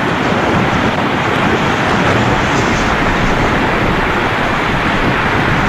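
Strong storm wind blowing hard and buffeting the microphone: a loud, steady rush of noise.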